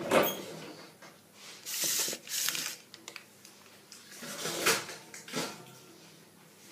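A cake pan being put into a kitchen oven: a few separate short knocks and scrapes of the metal pan and the oven door opening and closing.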